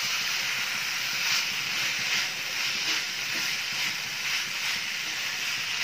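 Banana flower and dal sizzling in a frying pan as a wooden spatula stirs it: a steady hiss with light scrapes every second or so.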